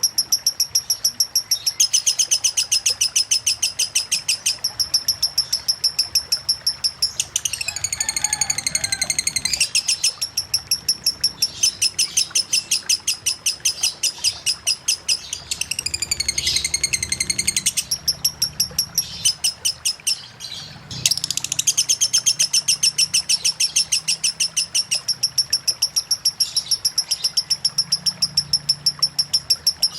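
Lovebird singing a long unbroken run of rapid, high, evenly repeated chirps, the continuous ngekek of a 'konslet' lovebird. Twice the run gives way to a short sweeping, warbling phrase, and it breaks off for a moment about two-thirds through before starting again.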